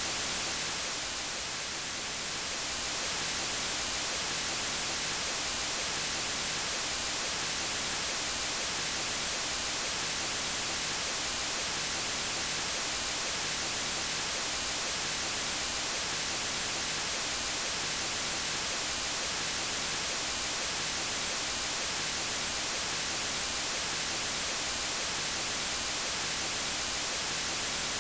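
Steady white noise, an even hiss. Its level dips slightly for a moment about a second in.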